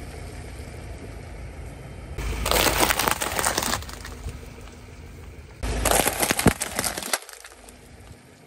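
Car tyre rolling over plastic bags of water beads, crushing and bursting them with a burst of crackling and popping, twice: about two seconds in and again about six seconds in. A low rumble runs underneath.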